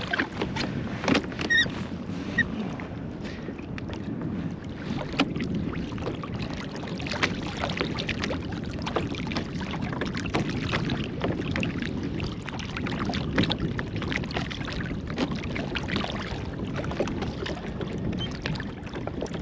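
Water lapping and splashing against a kayak's hull, with small splashes from a striped bass held by the jaw in the water alongside while it is revived before release.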